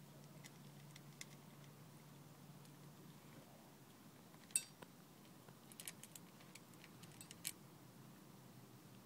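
A cat eating dry kibble from a stainless steel bowl: scattered small crunches and clinks of food and teeth against the metal, the loudest about four and a half seconds in and a cluster of them a second or so later.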